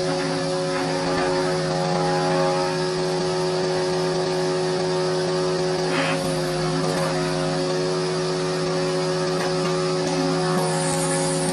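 Woodworking machine with a spinning cutterhead running steadily as a board is fed past it: a constant motor hum under the hiss of the cutter shaving the wood, with a brief knock about six seconds in.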